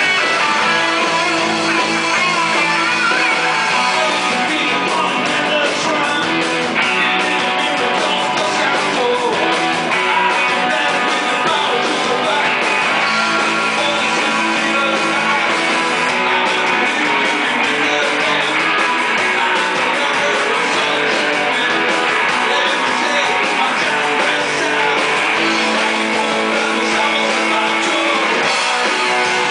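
Live rock band playing electric guitars and drums, heard from the audience in a small club. The cymbals come in densely about four seconds in and keep going.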